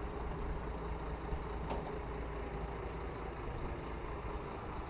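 Motorcycle engine running steadily while riding slowly, a low rumble with a faint steady tone.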